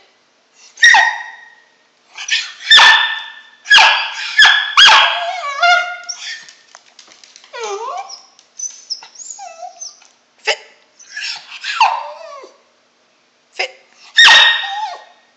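A dog barking in sharp, high yips, several in the first five seconds and another near the end, with softer whining calls that slide in pitch in between.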